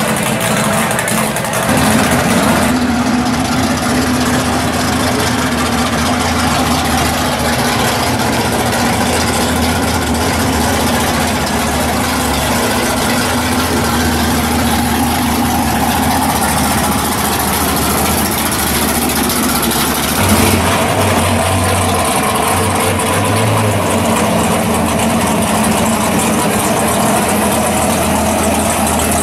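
Modified V8 muscle car engines idling with a steady low note, one car after another. The engine sound changes abruptly twice, about two seconds in and about twenty seconds in, as one car gives way to the next.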